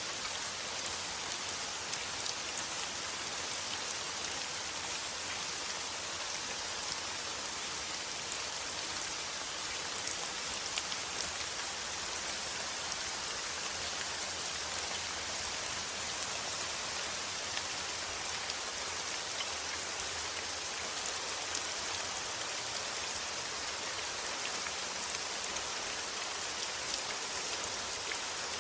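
Steady rain falling: a dense, even hiss with scattered sharp ticks of individual drops.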